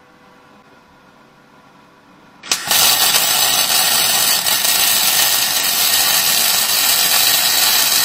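Semi-automatic (MIG) welder arc burning with 1 mm copper-coated SV08G2S wire. It strikes about two and a half seconds in with a short click, then runs as a steady loud crackling sizzle, cutting off right at the end.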